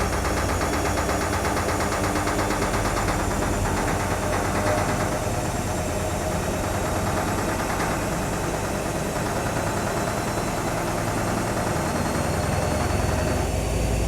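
AEG Öko Lavamat Edition 2000 washing machine running: a steady motor and drum noise with a fast, even vibrating rhythm.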